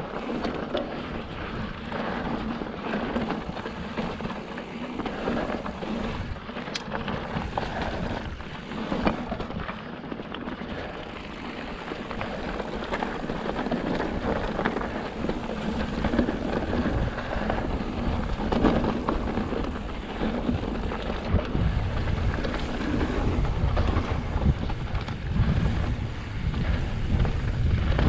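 Fezzari La Sal Peak mountain bike rolling down a rocky dirt trail: tyres crunching over gravel and stones, with the bike rattling over the bumps. Wind buffets the microphone, growing heavier in the last several seconds.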